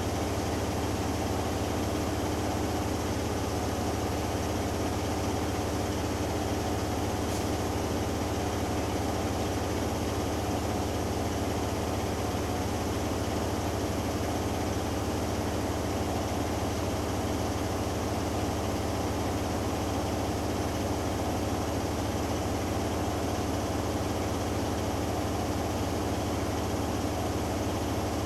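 Hoover Dynamic Next washing machine in its final spin, the drum turning steadily at high speed with a constant low hum.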